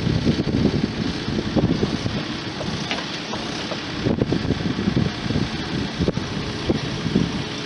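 Diesel engine of a Case 580 Super N backhoe loader running, an uneven low rumble with occasional clicks, with some wind noise on the microphone.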